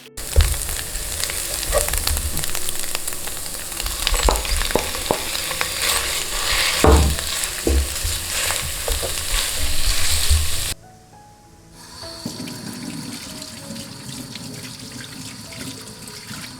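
Food sizzling and frying in a hot pan, with occasional clicks and scrapes, for about ten seconds; it cuts off suddenly and gives way to quieter rubbing and scraping with faint background music.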